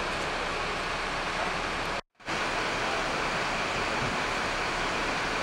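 Steady rushing noise with no distinct events, broken by a brief dropout about two seconds in.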